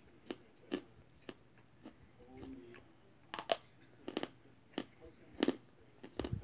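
Chalk sticks being bitten and chewed: irregular sharp crunches, several coming in quick pairs, with softer chewing between.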